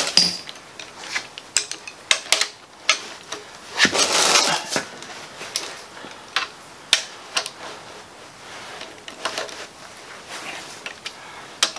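Irregular metallic clicks and clinks of a wrench working the cylinder head bolts loose on a Ford Model T engine, the bolts coming free fairly easily, with a longer clatter about four seconds in.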